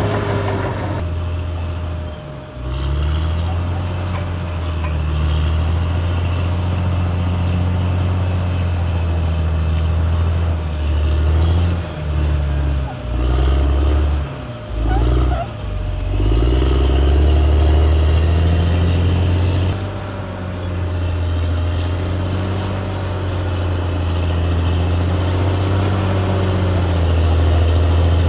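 Caterpillar D6R bulldozer's diesel engine running under load, its revs dropping and picking up again several times about halfway through.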